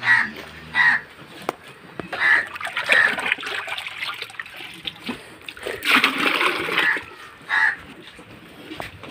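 Crows cawing, about five short calls spread through the stretch. About six seconds in, a louder wet splashing and sloshing of watery cattle feed mash lasts around a second.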